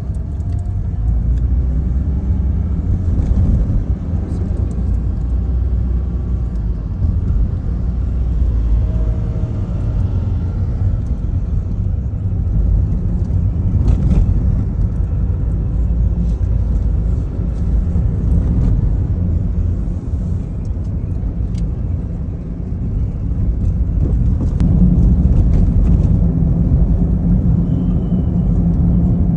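Steady low rumble of a road vehicle running, with small swells in loudness.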